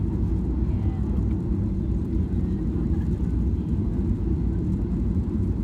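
Steady low rumble of Boeing 737-700 cabin noise: engine and airflow noise heard from inside the passenger cabin.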